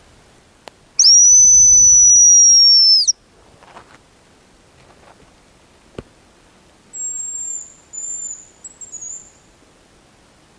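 A hazel grouse call (decoy whistle) blown close by: one loud, high, thin whistle lasting about two seconds, falling slightly in pitch, with breath noise under it. About seven seconds in comes a fainter, higher whistled phrase in three parts, the hazel grouse's thin song.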